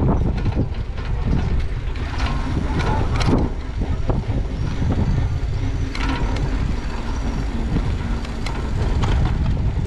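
Steady wind rumble on a bicycle-mounted camera's microphone while riding on a city street, with knocks and rattles from the bike over the road surface. A brief higher squeal comes about six seconds in.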